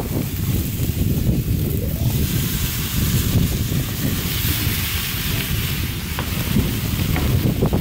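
Wind buffeting the microphone with a heavy low rumble, over the hiss of marinade sizzling as it is poured onto steaks on a hot gas grill, the hiss strongest from about two to six seconds in.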